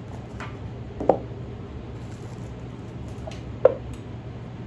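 Packaging being handled: a plastic wrapper and soft pouch rustling and crinkling, with two sharp clicks about two and a half seconds apart, over a steady low air-conditioner hum.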